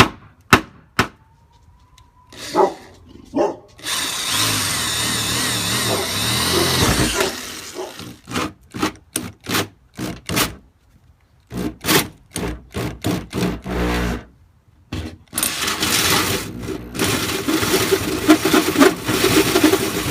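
Power tool cutting through a truck's sheet-metal fender for a snorkel hole. It runs in a few long stretches and many short bursts, after several sharp clicks near the start.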